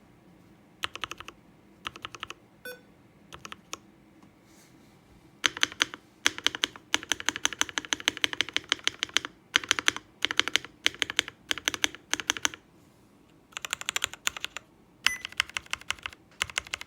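Fully modded MonsGeek M1 custom mechanical keyboard being typed on: a few short bursts of keystrokes, then a long stretch of steady typing, a brief pause, and more typing near the end.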